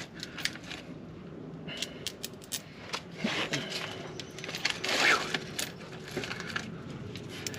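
Scattered small metallic clicks and taps of hand tools and bolts being worked by hand on a truck's suspension.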